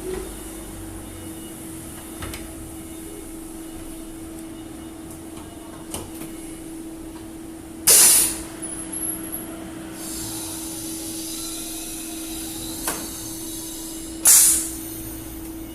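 High-frequency PVC welding machine running with a steady hum, its pneumatic press letting out two short, loud blasts of air about six seconds apart, with a fainter hiss in between.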